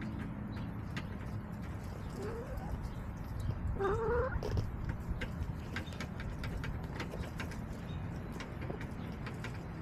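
Backyard hens calling: a faint short rising call, then a louder rising call about four seconds in, over a steady low background rumble with scattered light ticks.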